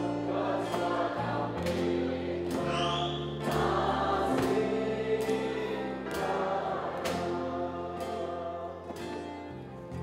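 Live worship music: a group singing over guitar and a drum kit, with cymbal strokes on a steady beat. It gets quieter toward the end.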